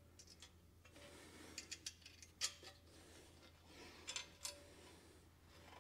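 Near silence with a few faint, short metallic clicks: a nut and bolt being handled by hand on the cement mixer's gear-motor mount.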